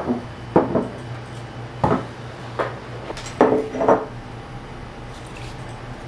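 Household items being set down on a wooden kitchen table: a glass pitcher and a small ceramic dish among them, giving about six short knocks and clinks in the first four seconds, then quieter handling.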